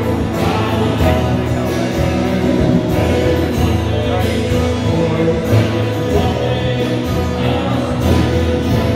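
Live worship band playing a praise song, with guitars and keyboard under singing.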